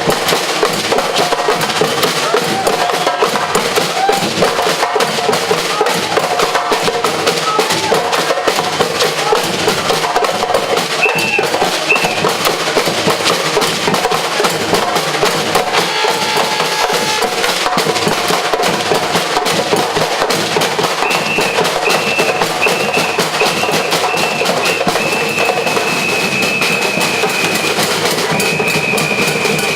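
Batucada percussion ensemble drumming a dense, steady groove. Over it a high whistle sounds two short blasts partway through, then a run of short blasts and longer held ones near the end.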